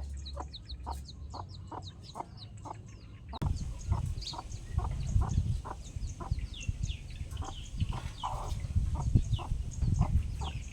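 Domestic chickens clucking in short notes about three times a second, with many high, quick peeps over them. A louder low background comes in abruptly about a third of the way through.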